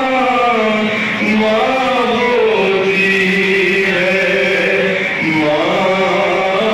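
A man chanting a noha, a Shia lament, solo into a microphone, in long held notes that slide up and down.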